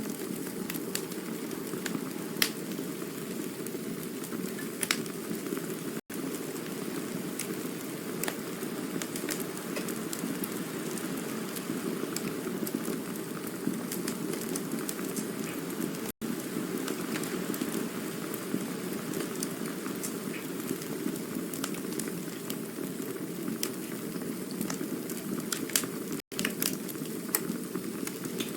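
Campfire burning with a steady rushing hiss and scattered sharp crackles and pops. The sound cuts out for an instant three times, about ten seconds apart.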